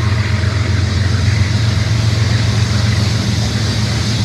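Coal train passing: a steady low drone with a broad rumble of freight cars rolling on the rails.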